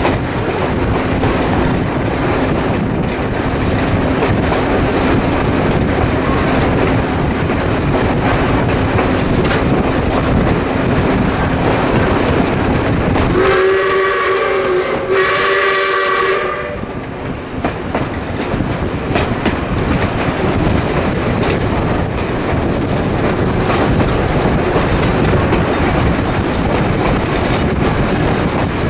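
Steam locomotive 621 working hard up a steep grade, its exhaust a loud, continuous stack talk. About halfway through its whistle sounds two blasts in quick succession, several notes at once.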